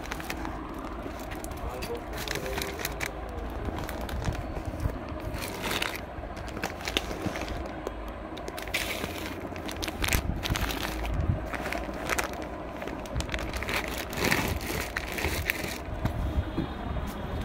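Plastic wrapping on packaged dress sets crinkling and rustling in irregular bursts as the packs are handled, over a steady low background rumble.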